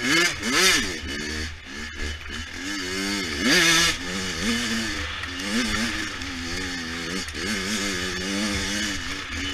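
100cc dirt bike engine revving up and down while being ridden, with two sharp surges in pitch, one near the start and one a little over a third of the way in, followed by quicker, smaller rises and falls.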